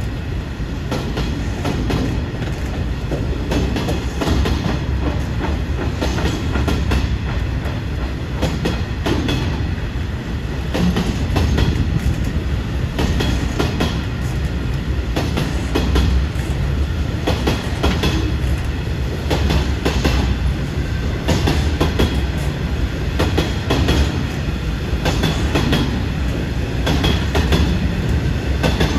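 Long freight train of open box wagons passing close by: a loud, steady rumble with frequent clicks and clanks of wheels clattering over the rails.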